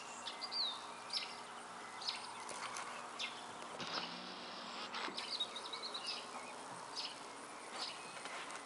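Outdoor ambience: a steady low hum under scattered short, high chirps of small birds, with a brief hiss about four seconds in.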